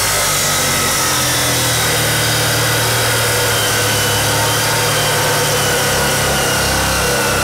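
A Sumo 355 mm (14-inch) abrasive cut-off saw with a copper-wound motor, its disc grinding through a thick Y-section steel bar. A loud, steady motor whine runs under a harsh grinding hiss, and the whine sinks slowly in pitch as the disc is pressed into the cut.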